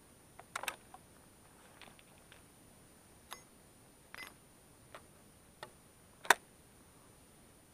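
Footsteps and legs brushing through tall dry grass: a series of separate short crunches and clicks, the sharpest about six seconds in.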